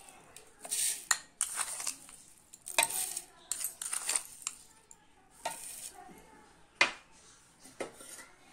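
Spoonfuls of granulated sugar tipped into a plastic chopper bowl: several short rattling hisses of grains landing, with sharp taps of the spoon against the bowl between them.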